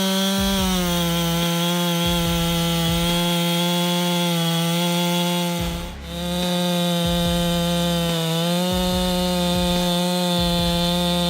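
Redmax GZ7100 chainsaw's 71 cc two-stroke engine running at high revs while cutting wood. It has a steady high whine whose pitch sags slightly now and then under load, and it briefly dips about six seconds in.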